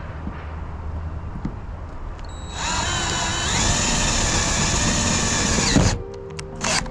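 Power drill spinning up about two and a half seconds in, its whine rising in pitch and then running steadily for about three seconds before stopping abruptly. A low steady hum comes before it, and a few sharp clicks follow.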